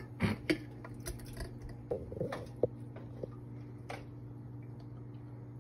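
Cooked plums and syrup plopping wetly off a spoon into a metal canning funnel and glass jar, with several short taps and clinks of the spoon against the funnel and pan, over a steady low hum.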